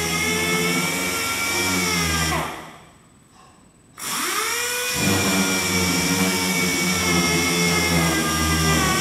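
An electric motor running with a steady whine. About two and a half seconds in it winds down and goes nearly quiet. It starts again about a second and a half later and spins back up to a steady run.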